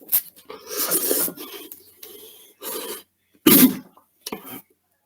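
A person coughing and hacking harshly on spicy ramen noodles. It comes as a series of rasping coughs, the loudest about three and a half seconds in.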